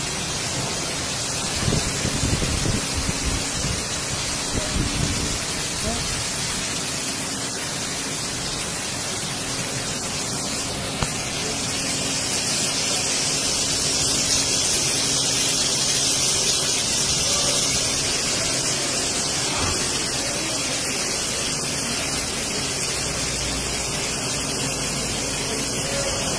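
Heavy downpour of rain, a steady loud hiss that grows stronger about halfway through and eases off later.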